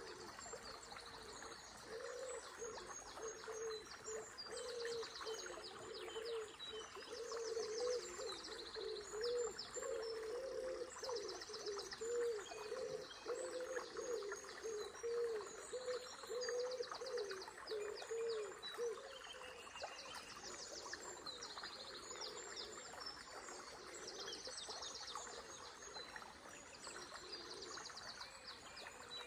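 Several songbirds singing in repeated short, high trilled phrases over the steady rush of a small river. A lower wavering call repeats through the first two-thirds and stops about two-thirds of the way in.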